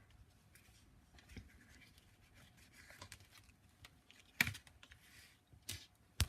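Card and paper of a handmade exploding box being handled: soft rustling and scraping, with a few sharp taps, the loudest about four and a half seconds in and right at the end.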